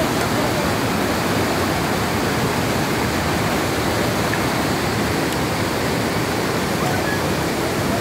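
Steady rush of a waterfall and river water pouring into a rocky pool.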